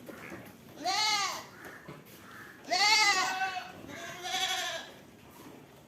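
Goats bleating: three separate bleats, each rising and falling in pitch, the second and loudest a little after the middle.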